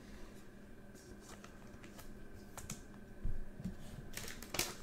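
Faint clicks and taps of trading cards being handled and set down on a table, with a soft knock about three seconds in and a brief crinkle of a foil card pack near the end.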